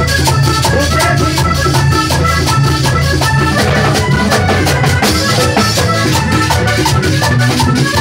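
Live vallenato music: a button accordion plays a running melody over heavy bass and drums, while a metal guacharaca is scraped in a fast steady rhythm close to the microphone.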